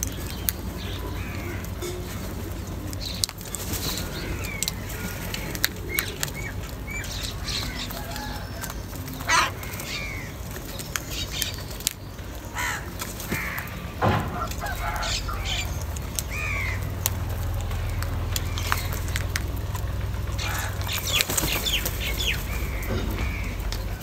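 A flock of house crows feeding together: scattered short calls, beaks pecking, and wings flapping as birds land and take off, with two louder calls about 9 and 14 seconds in.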